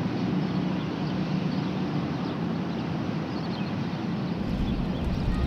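Steady outdoor background noise with a low hum; a deeper rumble joins about four and a half seconds in.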